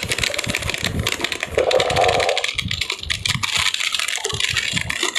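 Inflation sound effect: dense, rapid clicking and crackling over a hiss, with low thumps and a brief louder rushing sound about one and a half seconds in.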